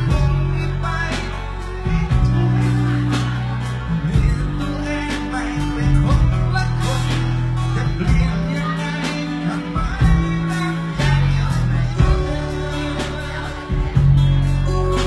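Live band music: a man singing into a microphone over acoustic guitar, keyboard and drums, with steady drum hits and deep low notes throughout.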